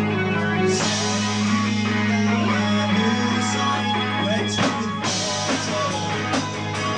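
Live rock band playing an instrumental passage: sustained low keyboard and bass notes under electric guitar, with drum hits coming in about four and a half seconds in.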